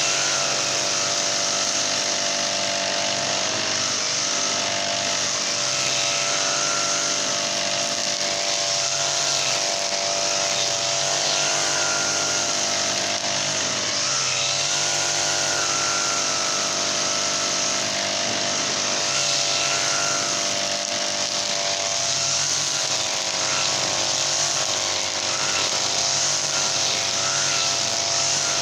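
Honda GX35 four-stroke brush cutter engine running steadily at working speed, its pitch rising and dipping slightly now and then.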